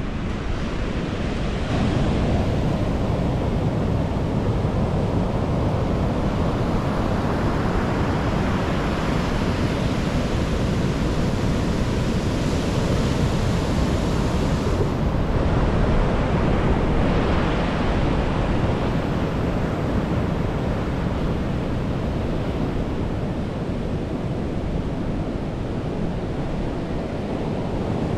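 Sea surf breaking and washing on a beach, in slow surges, with wind buffeting the microphone.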